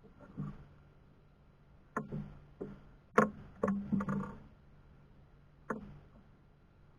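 A series of about seven sharp knocks and clatters, the loudest a little after three seconds and a quick cluster just after, over a faint steady low hum.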